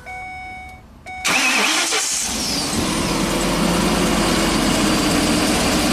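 A steady beep for about a second, then the Ford 6.8-litre V10 cranks, catches a little over a second in and settles into a steady idle. It runs with a pressure transducer in cylinder 5's spark plug hole, so that cylinder is not firing.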